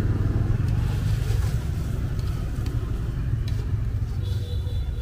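Motorbike engine idling close by: a steady low rumble, with a few light clicks in the second half.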